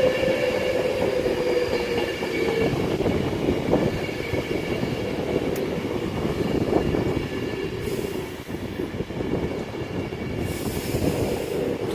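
Virgin Trains Class 390 Pendolino electric train running into the platform and slowing, with a steady rumble and a whine that falls slowly in pitch over the first couple of seconds. Faint wheel squeal runs through.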